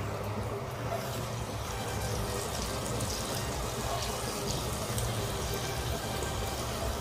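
Jalebi batter frying in hot ghee: a steady sizzle with scattered small crackles as fresh spirals of batter are piped into the oil.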